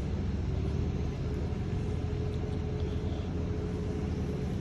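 A steady low rumble from a running motor, with a steady hum tone above it.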